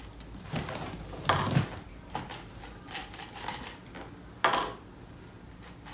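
Mike and Ike candies clicking and clattering into a small glass jar and against a plastic cup as they are picked out and dropped in by hand. There are several short clinks, the loudest about a second and a half in and again about four and a half seconds in.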